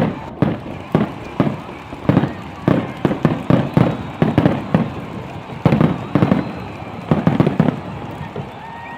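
Fireworks going off: a rapid, irregular series of sharp bangs and pops, several coming in quick clusters.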